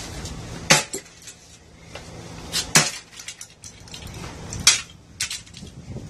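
Claw hammer striking a plastic remote control truck on a concrete floor: three hard, sharp blows about two seconds apart, with a lighter knock just after the third.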